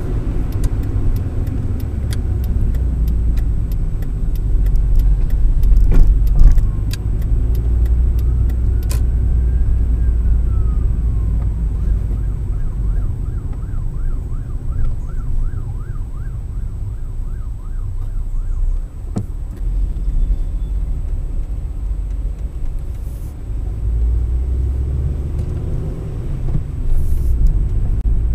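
Low road and engine rumble of a car driving, heard from inside the car through a dashcam. About a quarter of the way in, a siren comes in faintly with a slow rising and falling wail, then switches to a fast warbling yelp for a few seconds before fading.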